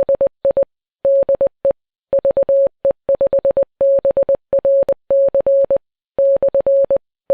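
Morse code sent as a single steady beep tone, keyed on and off in short dits and longer dahs grouped into characters with gaps between them.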